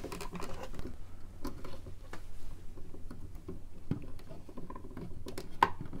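Light clicking and scratching of hands working electrical wires and orange-lever Wago connectors in a plastic switch box. There is a scatter of small, irregular clicks.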